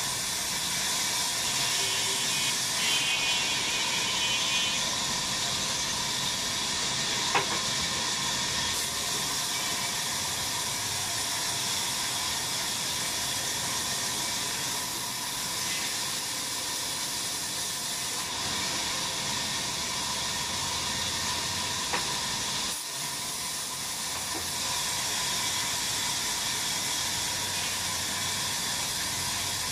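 Sawmill running as its blade cuts through wood: a steady hissing noise with a faint steady whine underneath. Two sharp clicks stand out, one about a quarter of the way in and one about three quarters in.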